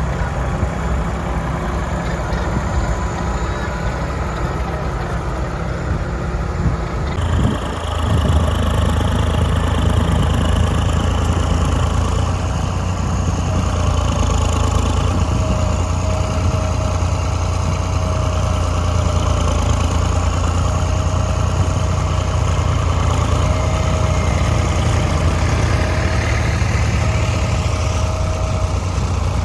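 Tractor engine running steadily, growing louder about eight seconds in.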